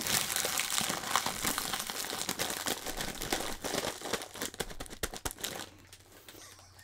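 Doritos chip bag crinkled and crumpled in the hands: a dense run of crackles that tails off about five and a half seconds in.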